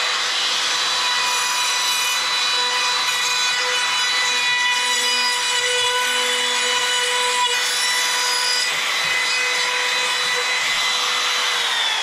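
Small handheld router with a quarter-round bit running at a steady high whine while rounding over the edges of ripped 2x4 strips, with the hiss of the bit cutting wood. Near the end the motor is switched off and its pitch falls as it spins down.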